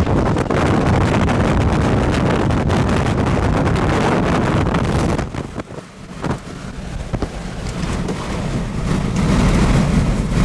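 Strong wind buffeting the microphone in a loud, gusty rush. It dies down briefly about halfway through, then builds back up.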